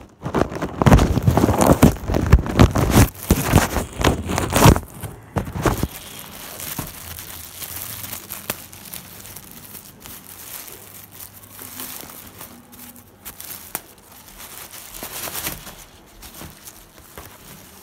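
Clear plastic packaging crinkling and rustling loudly as hands handle and unwrap a laundry bag, for about the first six seconds. After that, quieter rustling of plastic and fabric as the bag is pulled out.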